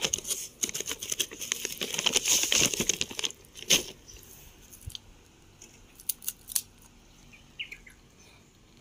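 A potato chip bag crinkling as a hand handles it and rummages inside, dense for the first three seconds or so, with one sharp loud rustle just before four seconds. After that only a few faint scattered clicks.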